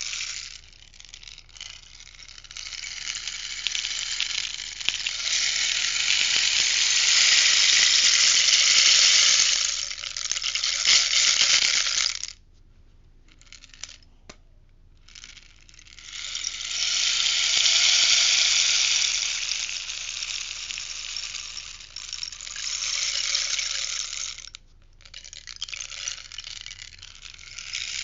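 Rainstick being tipped back and forth, its fill trickling down inside in long swells that build and fade. Three pours are heard: a long one that stops suddenly, a second after a pause of a few seconds, and a third starting near the end.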